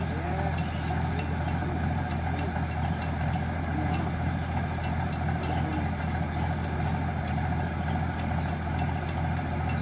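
Rice combine harvester running steadily while its unloading auger discharges paddy grain: a constant low engine hum.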